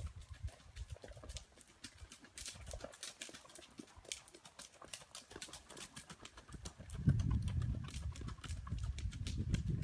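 Hoofbeats of a Rocky Mountain Horse carrying a rider along a dirt trail: a run of light clip-clops. A louder low rumble joins about seven seconds in.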